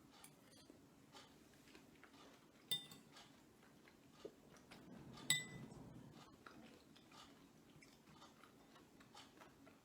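Metal spoon clinking against a bowl twice, about two and a half seconds apart, each clink ringing briefly, with faint small clicks of utensils between.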